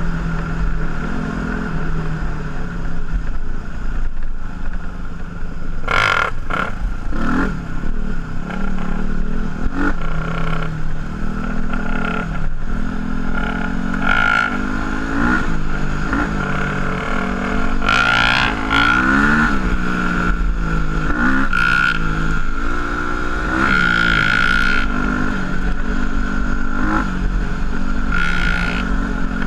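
Single-cylinder dual-sport motorcycle engine under way, its pitch rising and falling again and again as the throttle is opened and closed through the gears. A steady high whine runs underneath, and there are a few sharp knocks about six and seven seconds in.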